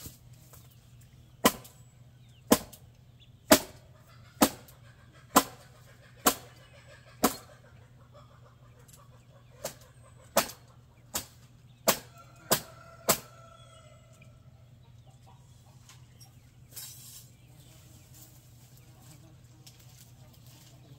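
Hammer blows, about a dozen sharp strikes: seven roughly a second apart, then after a short pause six more coming quicker, each with a brief ring.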